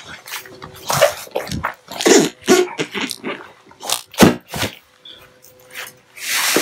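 Footsteps swishing through tall grass: an irregular run of rustles and soft thuds, with a longer rustle near the end.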